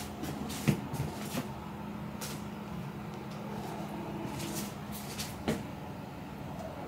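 Handling noise: a few light clicks and knocks, the sharpest just under a second in and another near the end, over a steady low hum.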